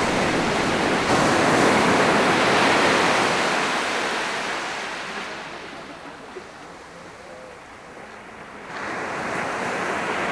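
Surf washing onto the beach, with wind. The rush of a wave builds over the first few seconds, ebbs to a low wash, then comes back up suddenly near the end.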